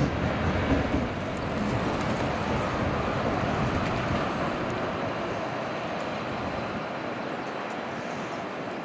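City street traffic noise from trams and double-decker buses. A low rumble eases off in the first second or so, leaving a steady traffic hum.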